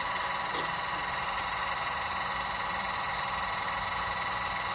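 Electric car jack's motor, powered from a car battery, running steadily with a whine as the jack lowers.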